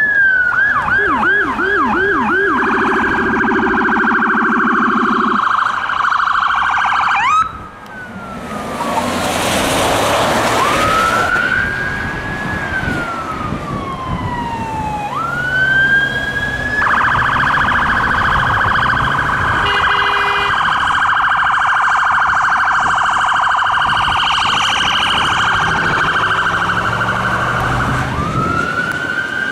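Electronic sirens of fire department command SUVs responding, cycling between a slow rising-and-falling wail and fast yelp and warble tones. About a third of the way in there is a loud rush of noise as a vehicle passes.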